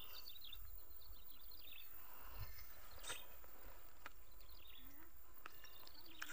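Quiet open-country ambience: a faint low rumble under scattered high, short chirping calls, with a few soft clicks.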